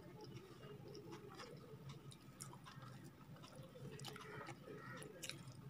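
Faint chewing of upma, with scattered soft wet mouth clicks.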